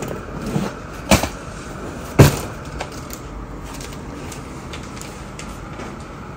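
Plastic-packaged comforter sets being handled and set down: crinkling plastic with several small clicks and two sharp knocks about one and two seconds in, the second the loudest.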